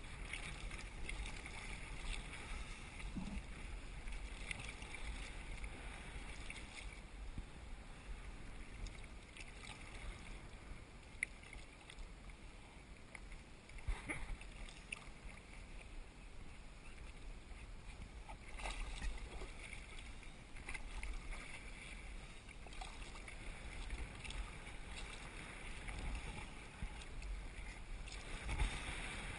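Sea kayak being paddled across choppy water: paddle blades dipping and water splashing and lapping against the hull, with wind noise on the microphone and a few sharp knocks.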